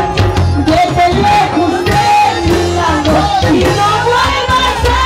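Live band playing loud dance music with a steady beat, deep bass and a melody line, possibly with some singing.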